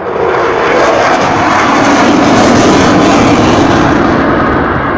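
Military fast jet passing overhead, its engine roar swelling to a peak midway and then easing off.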